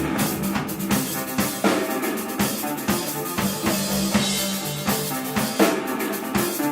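Live band playing, the drum kit prominent with regular kick, snare and cymbal hits over sustained pitched instruments.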